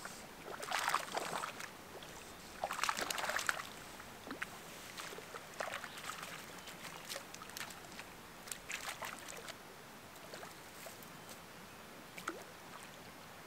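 Hooked brook trout splashing at the lake surface as it is played in against the bank, with two bursts of splashing about one and three seconds in. Smaller splashes and drips follow as it is landed by hand in the shallows.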